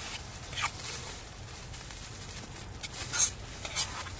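A metal spoon scraping and clinking against a small metal bowl, a few short strokes with the sharpest about three seconds in, over a low steady hum.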